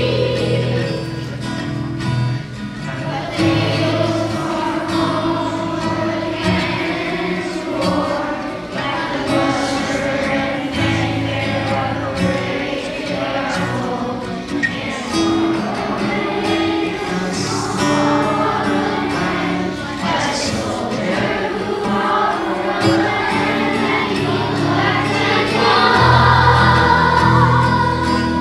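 Children's choir singing a song in unison over an instrumental accompaniment with sustained bass notes.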